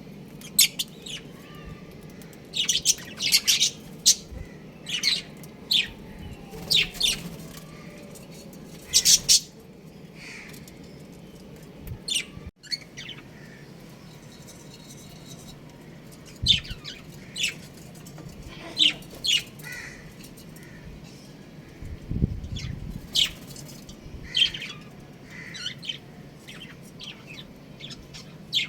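Small pet birds chirping: many short, sharp, high calls in irregular clusters over a steady low hum.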